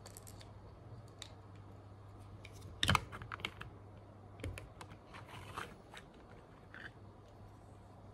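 Scattered light clicks and taps of small objects being handled, the loudest a sharp click about three seconds in, over a faint steady hum.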